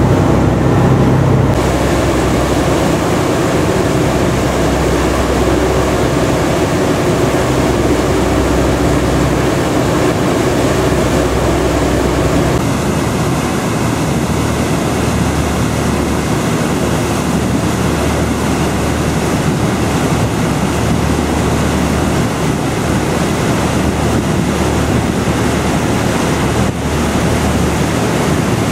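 River cruise boat under way: a steady engine drone mixed with water rushing in the churning wake and wind buffeting the microphone. The low drone weakens about halfway through, leaving mostly the rush of water and wind.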